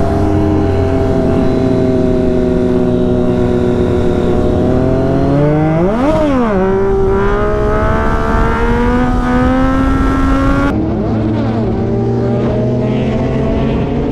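Triumph Street Triple motorcycle engine running under way, its pitch climbing slowly; about six seconds in the revs shoot up and fall back sharply, then climb steadily again.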